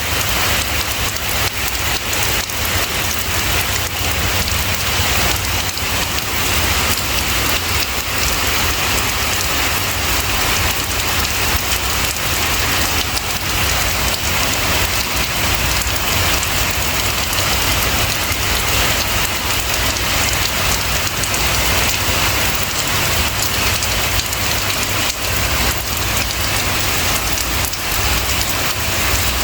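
Steady rain falling, an even hiss of drops on a surface with no breaks or changes.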